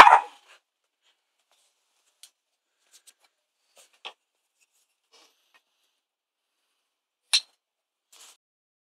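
A dog's bark cutting off at the very start, then mostly quiet with a few faint clicks and one sharp click about seven seconds in, from the wooden spinning top and its wooden launcher knocking together.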